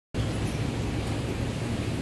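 Steady low machinery hum with an even background hiss, starting abruptly as the sound begins.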